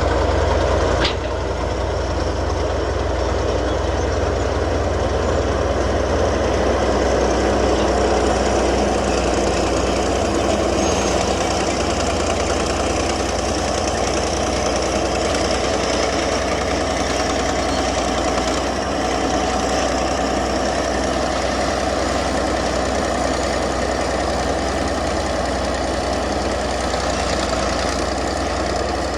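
Komatsu D155A bulldozer's diesel engine running steadily under work, a heavy low rumble with a mechanical clatter, dropping slightly in loudness about a second in.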